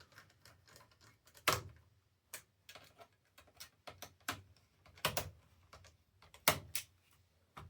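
Irregular light clicks and taps of small parts and tools being handled on an opened laptop, with a few sharper knocks about a second and a half in and again past five and six seconds.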